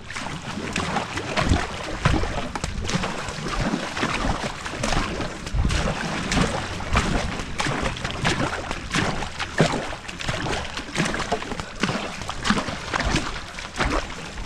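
Two-person marathon racing canoe being paddled hard: paddle blades catch and pull in a quick, even rhythm, about three strokes every two seconds, with water splashing and sloshing along the hull.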